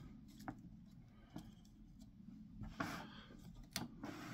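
Faint handling of a large 1/72-scale plastic mecha model kit: a few light plastic clicks and soft rubbing as hands touch and move its wings, spread out over a quiet room.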